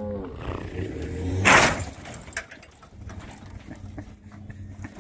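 Pickup truck engine running under load while it drags a chained camper trailer, with a short loud burst of noise about a second and a half in. A cow's moo trails off at the very start.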